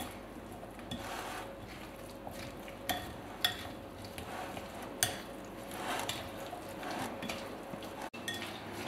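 A utensil stirring a mayonnaise-dressed crab stick and rice salad in a glass bowl: repeated soft scrapes, with a few sharp clicks of the utensil against the glass.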